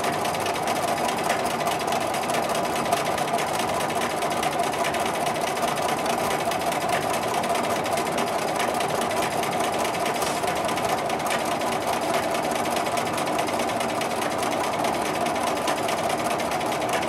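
Bernina sewing machine running steadily, free-motion quilting: a fast, even run of needle strokes through a quilt sandwich under a spring-loaded hopping foot.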